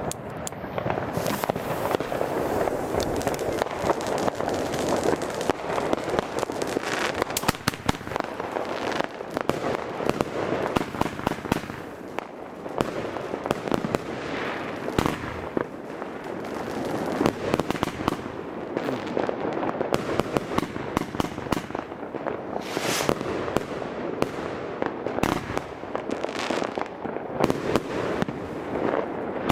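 Riakeo Peking Opera 1, a 51-shot 30 mm compound firework cake, firing a continuous rapid barrage of shots and aerial bursts.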